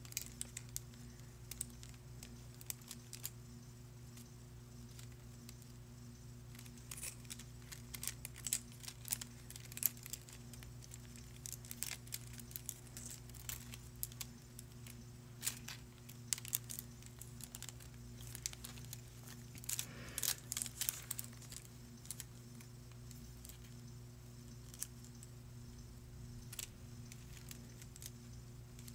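Scattered light clicks, ticks and rustles of small objects being handled, clustered in the middle, over a steady low electrical hum.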